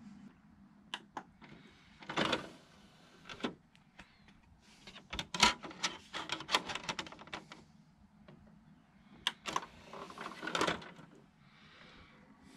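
Handling noise of a DVD being set into the open disc tray of a Philips DVD/VCR combo player: a run of sharp plastic clicks and knocks, with a couple of short scraping bursts.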